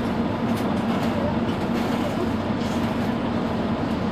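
Mercedes-Benz Citaro C2 city bus standing with its engine idling: a steady low rumble with a constant hum.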